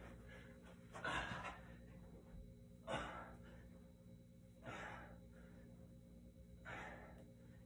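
A man's hard exhalations while doing curl-ups, one short breath about every two seconds, four in all, faint.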